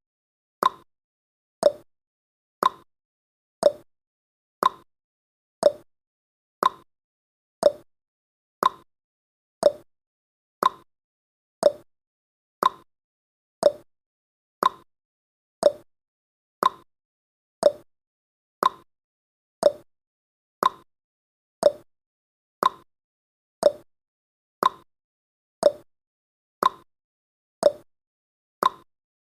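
Ticking clock sound effect of a countdown timer, one short tick every second, alternating between a higher and a lower tick like a tick-tock.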